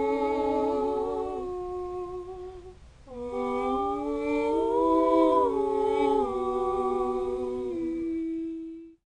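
A cappella humming, several held notes sounding together in harmony and moving in steps, in two phrases with a short break about three seconds in. It stops abruptly near the end.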